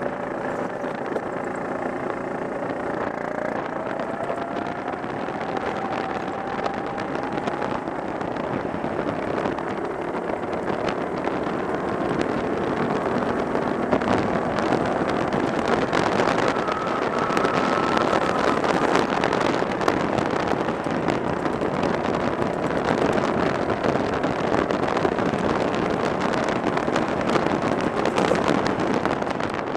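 Go-kart engine running at speed on the track, its pitch rising as the kart accelerates out of a corner in the first several seconds, then holding at a steady high drone.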